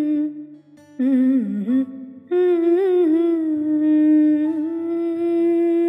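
Background music: a voice humming a slow, lullaby-like melody in long held notes over soft accompaniment, in three phrases, the last one long.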